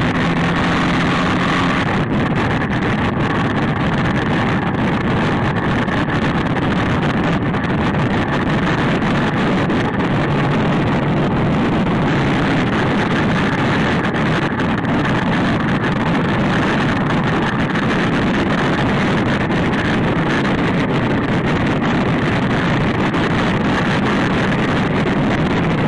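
Supermoto motorcycle engine running at speed on the road, largely buried under steady wind rush on the on-board microphone.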